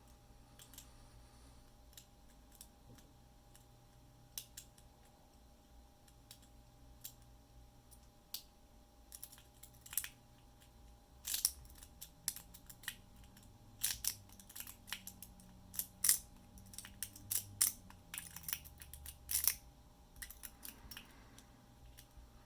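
Lock pick and tension tool clicking and scraping in the keyway of a 10-wafer LOTO padlock being picked: irregular sharp clicks, sparse at first and busier and louder in the second half.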